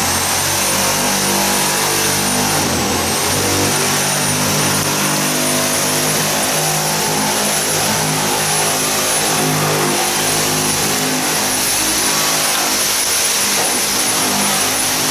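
A motor running steadily with a thin high whine over a lower drone; the pitch sags briefly about three seconds in, as if under load, then recovers.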